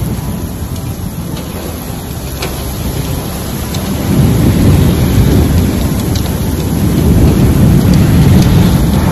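Torrential thunderstorm rain: a dense, loud rushing hiss over a deep rumble, which grows louder about four seconds in.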